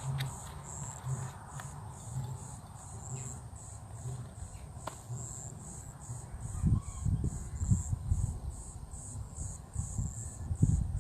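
Lions roaring at a distance: a series of deep, low grunting roars that get much louder from about six seconds in and again near the end. Crickets chirp throughout in an even, high-pitched pulse.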